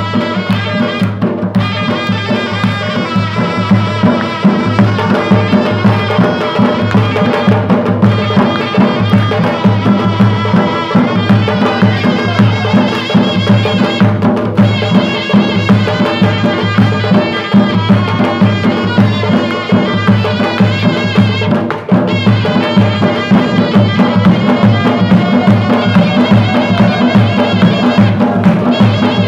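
Chitrali folk dance music: a dhol drum beating a quick, steady rhythm under a continuous melody line.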